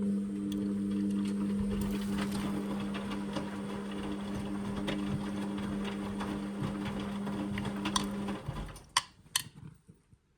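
Indesit washing machine running with a steady mechanical hum and continuous light rattling and clicking, which cuts out suddenly about eight seconds in, followed by two sharp clicks.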